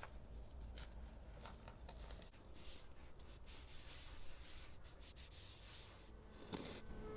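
Faint rustling and rubbing, with a few small clicks.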